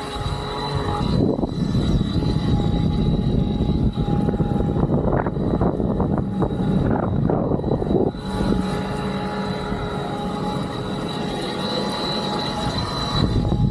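Fliteboard Ultra eFoil's electric motor and propeller whining steadily at speed, with water and wind rushing past. From about a second in until about eight seconds a louder rushing wash nearly covers the whine, and then the whine stands out again.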